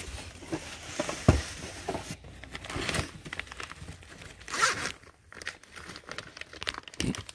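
Clear plastic bag crinkling as it is handled and pulled open, a run of short crackles with one louder burst a little past halfway.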